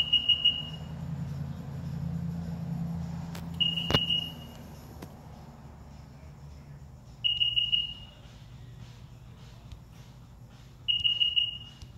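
Electronic beeping: a quick run of four or five high beeps, repeated about every three and a half seconds. Under the first half a low steady hum of the Rule bilge pump's motor running fades out, with a sharp click about four seconds in.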